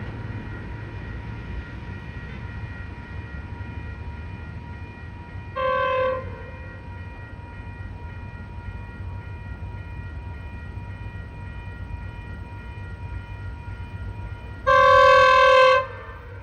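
GO Transit commuter train's horn, called goofy, sounding one pitched note: a short blast about five and a half seconds in and a longer blast of about a second near the end. Under it runs the steady rumble of the train.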